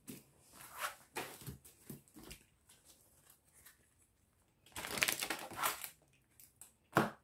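Tarot cards being handled and shuffled: faint papery rustles and flicks, with a longer run of shuffling about five seconds in and a sharp tap of a card near the end.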